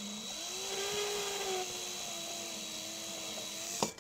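Power drill with a 1/4-inch bit running slowly, starting the pilot hole for a gooseneck hitch in a pickup bed. Its motor whine climbs a little in pitch within the first half second, holds steady, and stops with a click just before the end.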